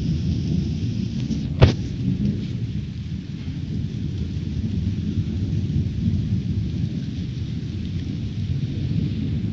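Thunderstorm: a continuous low rumble of thunder under a steady hiss of rain, broken by one sharp crack about one and a half seconds in.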